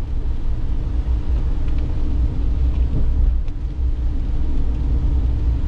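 Steady low rumble of a Ram Promaster van's engine and tyres on a wet road, heard from inside the cab while driving.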